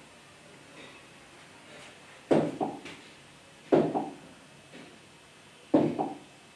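Three sharp knocks against a writing board as a square is drawn on it, each followed by a softer second knock about a third of a second later.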